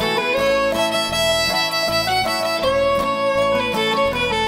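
Background music: a fiddle playing a melody over guitar and a steady bass beat.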